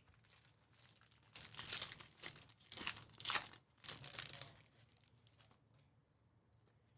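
Foil trading-card pack wrapper being torn open and crinkled in the hands, in several short rustles between about one and a half and four and a half seconds in.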